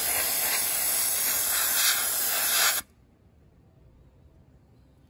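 Gravity-feed air blast gun spraying baking soda at an old rusty garden trowel: a steady hiss of compressed air and blasting media that cuts off suddenly a little under three seconds in.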